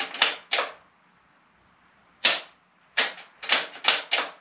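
Bolt-action precision rifle worked during dry-fire practice: a string of about eight sharp clicks and clacks from the bolt and trigger, two or three at the start and five more in quick succession from about two seconds in. No round is fired.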